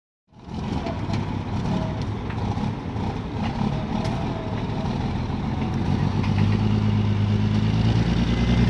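Diesel engine of a semi-tractor running under load as it tows a mobile home, growing louder over the last few seconds.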